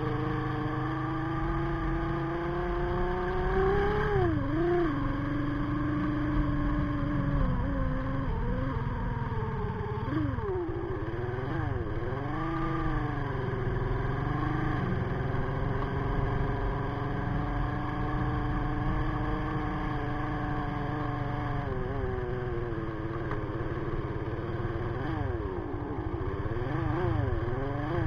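Sigma 250cc motorcycle engine running under way on a muddy, rocky trail, its pitch rising over the first few seconds, then dipping and swooping up and down several times as the throttle is opened and closed, over a steady low rumble.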